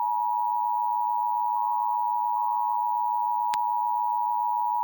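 Emergency Alert System attention signal: the steady two-tone alert (853 and 960 Hz) sounding during a monthly test, with one faint click about three and a half seconds in.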